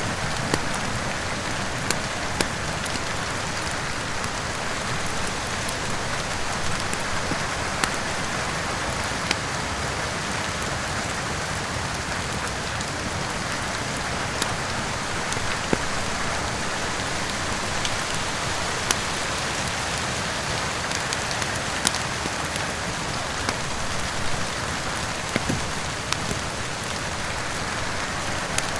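Steady rain falling, with sharp pops and crackles from a wood fire scattered irregularly over it.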